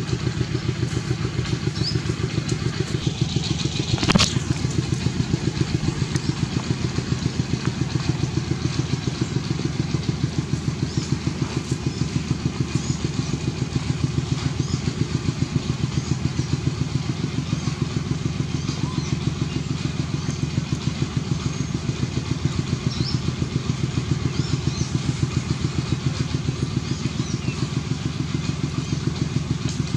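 A small engine running steadily with an even, low pulse, holding the same level throughout, and one sharp knock about four seconds in.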